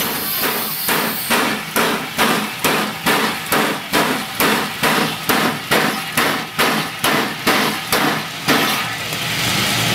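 Y542, a New Zealand Railways 0-6-0T steam tank locomotive, working steam with a steady rhythmic chuff of exhaust beats from its chimney, about three a second. The beats stop near the end, leaving a steady hiss of steam.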